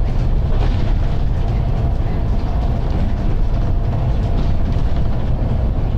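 Volvo B9TL double-decker bus under way, its engine and road noise heard from the upper deck as a steady, loud low rumble.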